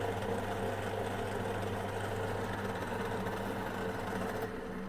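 Machine tool running steadily while drilling a 5 mm hole 55 mm deep, a constant motor hum. It starts to die away near the end as the machine runs down.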